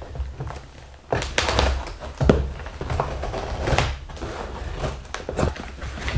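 Knife cutting through packing tape on a cardboard box, with irregular scrapes, tape ripping and knocks of the cardboard being handled.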